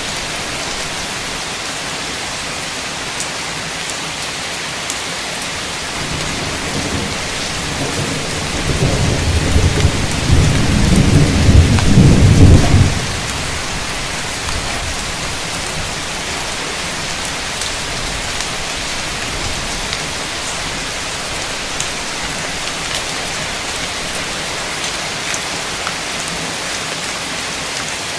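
Heavy rain falling steadily, with a roll of thunder that builds about a third of the way in, rumbles for around five seconds and then stops sharply.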